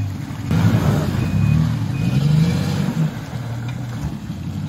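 Off-road 4x4 engines revving under load through a muddy stream crossing, the engine note rising and falling again and again.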